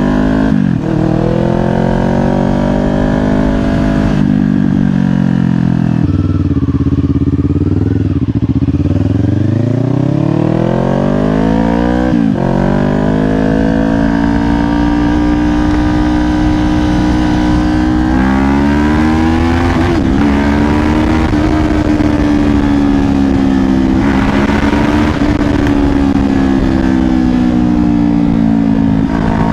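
Kawasaki Ninja 500 parallel-twin engine pulling through the gears. Its pitch climbs under throttle and drops sharply at each upshift, several times over. Once the pitch falls away and then climbs again, and near the end it settles into a steadier cruise. Wind rushes over the helmet-mounted mic beneath it.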